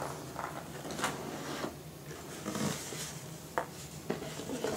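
Faint handling noise of a presentation box being opened: rubbing and scraping of the box and lid, with a few light clicks and knocks.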